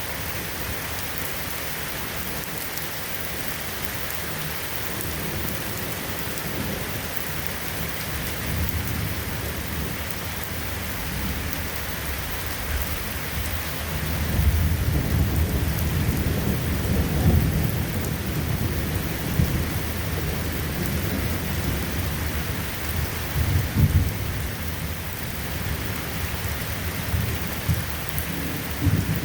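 Steady rain falling, with thunder rumbling in from about halfway through, swelling twice and again near the end.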